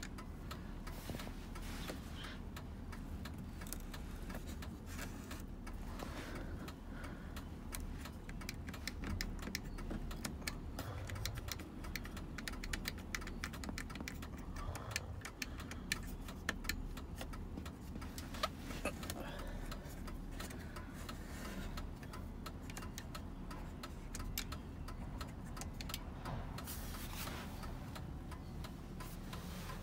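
Scattered small clicks and taps from the buttons of an SUV's rear-seat audio control panel being pressed and handled, over a steady low hum in the cabin.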